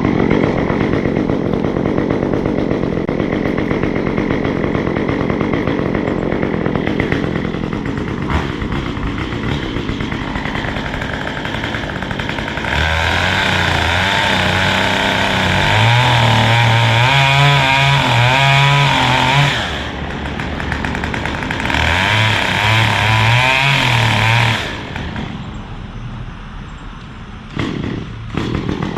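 Two-stroke chainsaw running and bucking up a felled tree, with two long stretches at full throttle under load near the middle.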